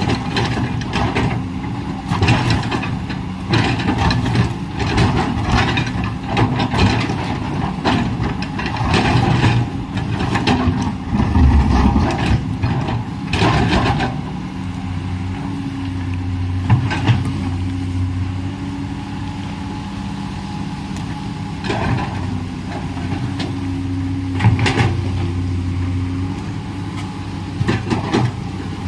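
Komatsu PC210LC hydraulic excavator working: its diesel engine runs steadily under load, with frequent sharp clanks and knocks through the first half that thin out to a few after about halfway.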